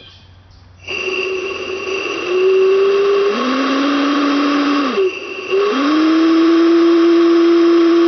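Homemade whistle built from used propane cylinders, blown with compressed air at about 40 psi. It comes on about a second in with a loud air hiss under a steady tone, drops to a lower, deeper note, breaks off briefly near the middle, then sounds the lower note again. At this pressure it works, but not real good.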